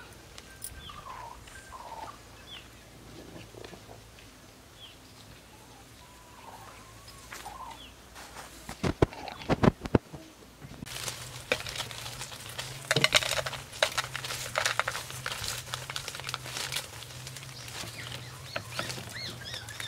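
Birds calling with short chirps and glides over a low hum. About halfway through come a few loud knocks, then a steady run of sharp clicks and crackles from close handling of a wicker basket and crisp fried diving beetles on a plate.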